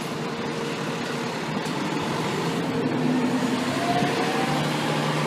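Seagrave fire engine's diesel engine running as the pumper moves at low speed, over a steady wash of city street noise.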